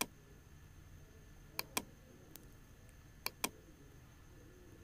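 Computer mouse clicking: two quick pairs of sharp clicks about a second and a half apart, over a faint steady hum.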